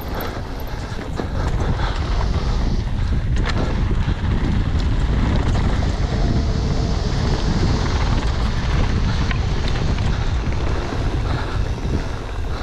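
Wind rushing over an action camera's microphone as a downhill mountain bike runs fast down a dirt and dry-grass track, with tyre noise on the ground and a few sharp knocks and rattles from the bike.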